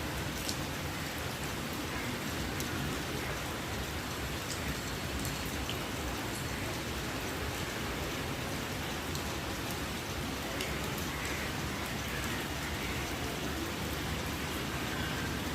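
Steady rain falling, with scattered drops pattering on a surface.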